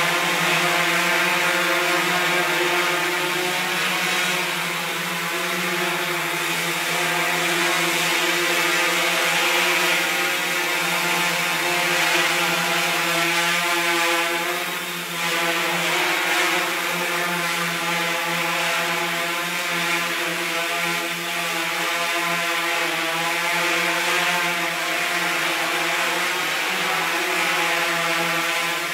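Multirotor drone's electric motors and propellers buzzing steadily in flight, the pitch wavering slightly as the rotor speeds keep adjusting.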